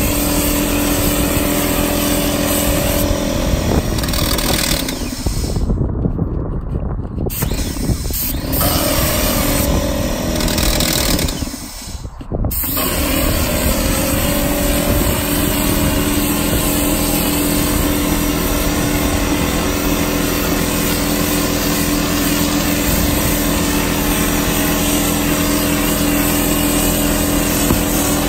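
Spray rig's engine-driven pump running steadily, with the hiss of cork coating spraying from the hose's gun. The hiss dies away for a few seconds about six seconds in, and again briefly about twelve seconds in.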